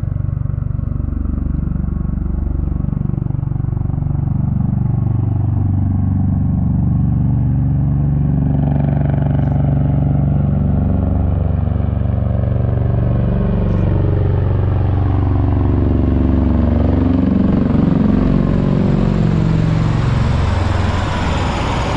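Two V-22 Osprey tiltrotor aircraft flying slowly in helicopter mode with rotors tilted up, their deep rotor and engine drone growing louder and brighter as they come in and pass overhead, loudest near the end.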